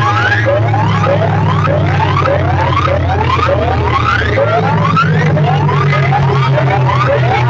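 A competition DJ sound system playing very loud, with repeated rising siren-like sweeps, about two a second, over a heavy sustained bass line that shifts pitch every few seconds.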